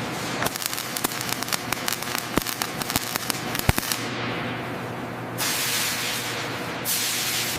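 Dense crackling of many sharp clicks for about four seconds, then two bursts of loud, steady hissing, like a high-pressure spray or air blast, the first starting about five seconds in.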